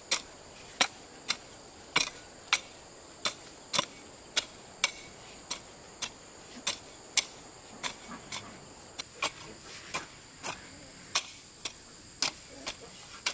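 A series of sharp clicks or knocks, irregularly spaced at roughly one to two a second, over a faint steady high-pitched whine.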